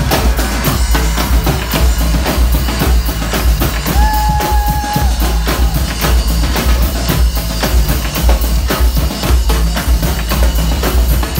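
Live band music driven by marching bass drums and snare drums beating a fast, busy rhythm over a steady low bass line. A short held high note sounds briefly about four seconds in.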